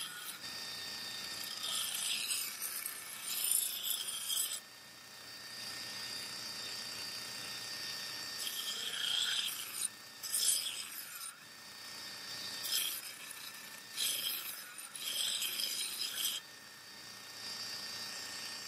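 Belt grinder running with a steady high whine, while a rusty steel katana blade is pressed onto the abrasive belt in about six separate passes. Each pass is a loud grinding hiss as the rust is ground off the steel.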